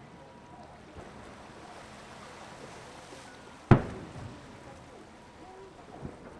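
A single sharp firework burst a little past halfway, its bang trailing off briefly, over a steady background hiss.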